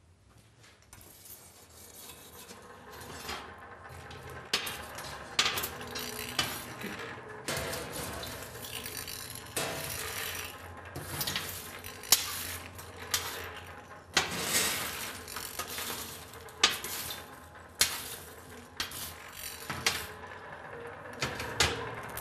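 Irregular metal clinks and knocks at a coal forge: an iron bar and fire tools striking and scraping against the firepot and the coals as the piece is heated. The clatter grows over the first few seconds, then comes as scattered sharp strikes.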